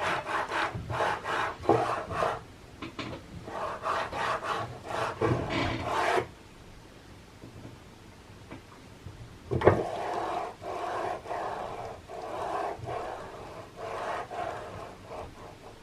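HGR20 linear guide carriage, reballed with replacement steel balls, being pushed back and forth along its rail by hand: a series of short rolling, rasping strokes as the recirculating balls run, then a single knock about ten seconds in, followed by more strokes.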